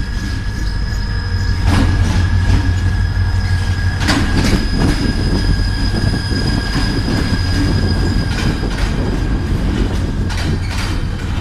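Diesel locomotive and container freight train passing close by, the engine's steady low drone under a steady high-pitched whine. The wheels clank sharply over the rails a few times, around two seconds in, around four seconds in, and again near the end as the container wagons roll past.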